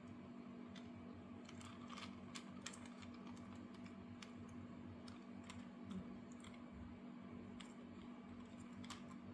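Faint, scattered small clicks and taps of hard plastic parts on a Robocar Poli Amber transforming toy being handled and folded into robot mode, over a steady faint hum.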